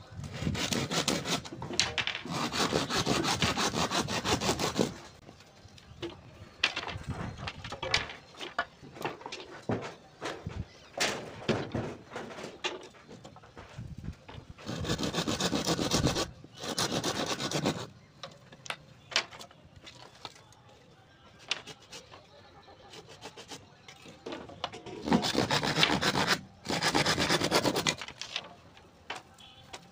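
Hand saw cutting bamboo in quick back-and-forth strokes, in three runs of a few seconds each: from the start, about halfway through, and near the end. Quieter scraping and tapping of the bamboo fill the gaps between.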